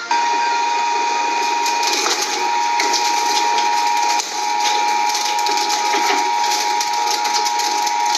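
Shredding machine running with a steady grinding noise and a constant high whine, cut by a brief dip about four seconds in.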